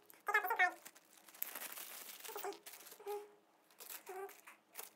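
Small plastic zip-lock bag crinkling and rustling in irregular bursts as it is handled and opened.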